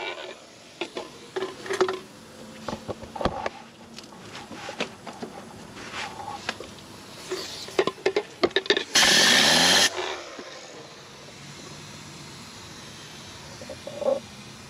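Tornador compressed-air cleaning gun fires a loud, even hissing blast for about a second, around nine seconds in. Before it come scattered light clicks and knocks.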